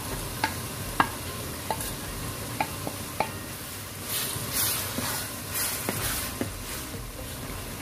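A wooden spatula stirring a sizzling shrimp-paste mixture in a wok of hot oil. Several sharp clicks come in the first few seconds, then scraping swishes of the spatula from about four seconds in.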